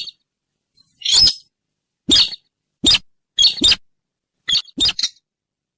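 Sintar bird calls played as a hunting lure: short, harsh calls repeated at irregular intervals, several coming in quick pairs.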